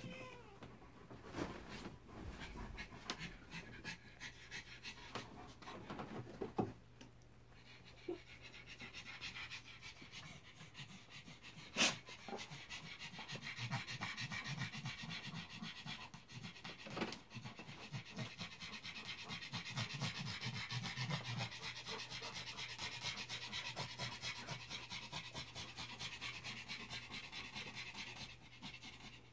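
A dog panting rapidly and steadily, with a sharp click about twelve seconds in and a few softer knocks.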